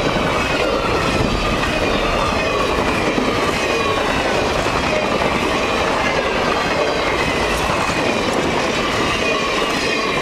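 Freight train rolling past at speed, a steady, unbroken noise of wheels on rail with faint high squealing from the wheels.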